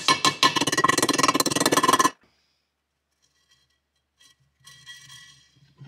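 A transmission bearing being tapped into a heated aluminium motorcycle crankcase with a brass driver: a quick run of light metallic taps with ringing for about two seconds. Fainter clinks follow near the end.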